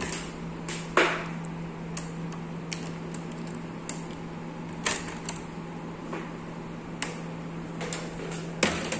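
Scattered light clicks and knocks of hands handling parts, the sharpest about a second in, over a steady low hum that stops near the end.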